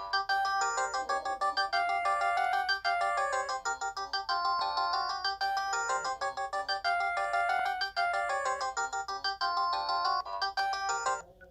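A Philips 530 mobile phone playing one of its polyphonic synthesized ringtones: a quick melody of many notes sounding together, which stops shortly before the end.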